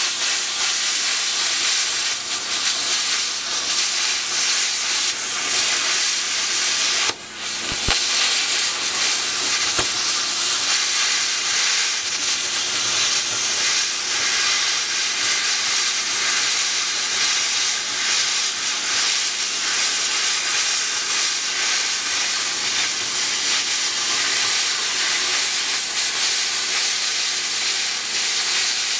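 Plasma cutter cutting through a stainless-steel dishwasher panel: a loud, steady hiss from the arc and air, with a brief break about seven seconds in.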